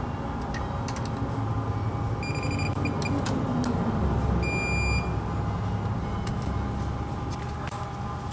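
A few light metallic clicks of a wrench on the camshaft sprocket bolts of a BMW N47 diesel engine, with two short electronic beeps about two seconds apart near the middle, over a steady low hum.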